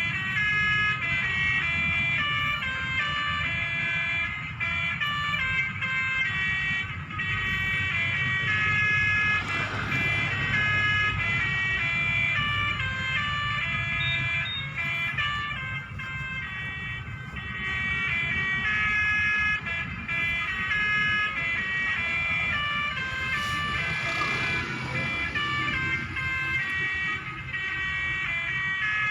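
Basuri telolet multi-tone electric horn playing a tune, its notes jumping from one pitch to the next in quick steps, with a low rumble underneath. The horn breaks off twice for a moment.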